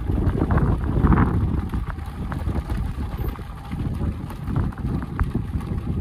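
Motorcycle running at low speed on a gravel track, its engine mixed into heavy, gusting wind rumble on the microphone, with a few short clicks.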